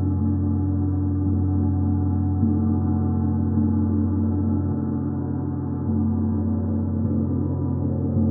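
Gong played softly and continuously, a sustained wash of deep, overlapping ringing tones renewed by light strokes every second or two.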